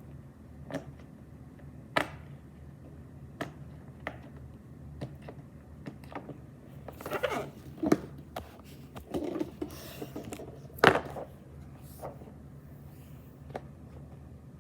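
Fidget toys being handled: irregular clicks and taps, with a stretch of rustling and rubbing in the middle and the loudest click about eleven seconds in.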